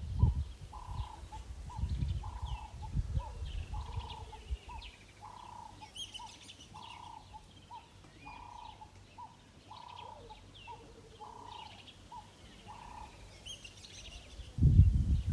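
Wild birds calling: one repeats a low note over and over, a little more than once a second, while others chirp higher. Low rumbling noise runs under the start and comes back near the end.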